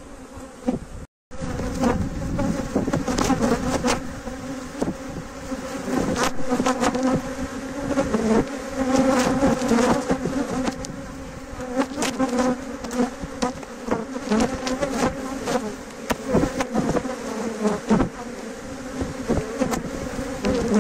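A mass of honeybees buzzing steadily around an opened hive, with scattered short knocks and handling noises from the frames and box. The sound cuts out for a moment about a second in.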